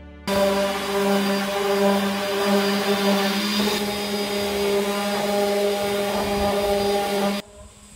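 Handheld electric palm sander running steadily against a wooden board: a motor hum with a grinding hiss of the pad on the wood. It stops abruptly near the end.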